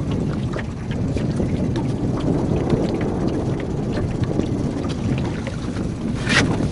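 Fishing boat's motor running steadily while trolling, a low rumble with wind buffeting the microphone. A short sharp sound cuts in near the end.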